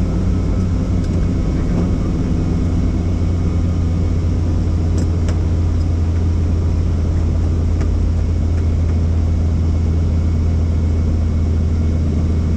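Helicopter running steadily: a constant, loud low drone of rotor and engine.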